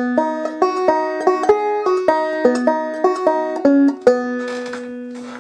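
Instrumental lead-in played on a plucked string instrument: a quick run of picked notes, then about four seconds in a note that rings on and slowly fades.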